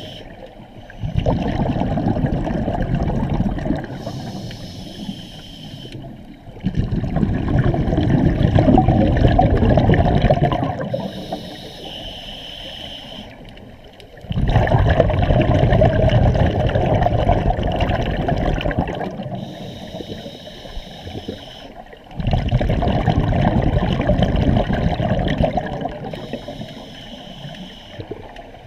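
Scuba regulator breathing underwater: four long, loud bursts of rumbling exhaust bubbles, each a few seconds long, alternating with quieter inhalations that carry a faint hissing whistle from the regulator.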